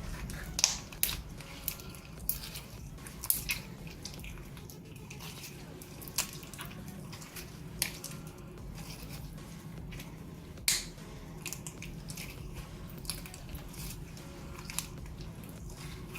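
Glitter slime being squished and pressed by hand, making irregular wet clicks and pops, with a steady low hum underneath.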